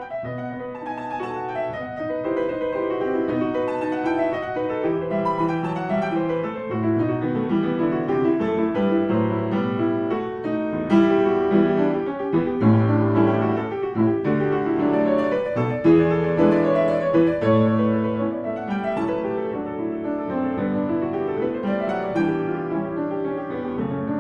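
Classical piano music playing, a steady run of many notes in both low and middle registers.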